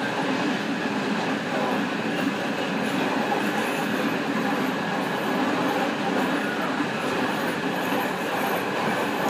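Passenger train running along the rails at speed, heard from inside the rear of the train: a steady, even rolling noise of wheels on track.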